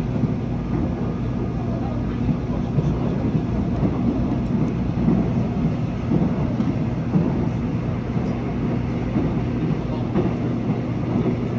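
Seoul Subway Line 1 electric train running at speed, heard from inside the carriage: a steady rumble of wheels on rail with a constant low hum underneath.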